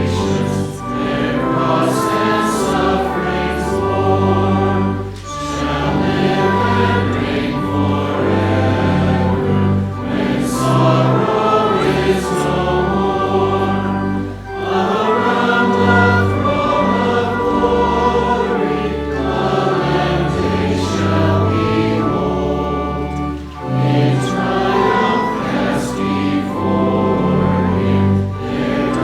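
Many voices singing a hymn together over a low, held accompaniment, with short breaks between the lines about every nine seconds.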